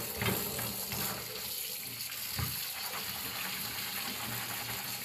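Kitchen tap running in a steady stream onto green peas in a plastic colander in a stainless steel sink, with a few light knocks as a hand stirs the peas.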